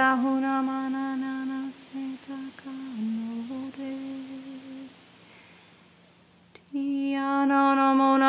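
A voice humming long, steady held notes of sung Light Language. The notes break into shorter phrases about two seconds in, stop for nearly two seconds past the middle, and come back as a held note near the end.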